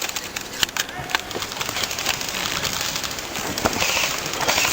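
Scattered sharp snaps of airsoft gunfire in the first second or so, then a few isolated shots over a low outdoor background.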